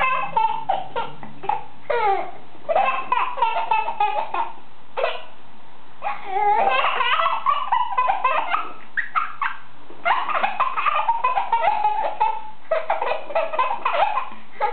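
Baby laughing hard in a string of bouts, each a run of quick high-pitched laughs, with short pauses between them.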